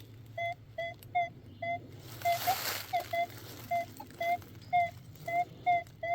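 Metal detector, a Minelab Manticore, beeping as it is swept back and forth over a buried metal target. Short mid-pitched beeps come about twice a second, often in pairs, some with a slight upward lilt.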